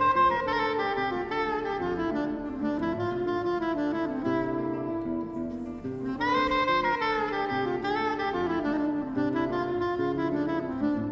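Instrumental jazz background music: a saxophone plays a melody over a walking bass line, with one phrase starting at the beginning and a new phrase about six seconds in.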